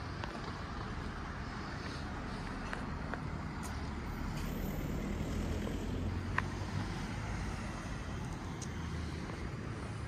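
Steady low rumble of outdoor street ambience with a vehicle engine hum, swelling a little midway, plus light wind on the microphone and a few faint clicks.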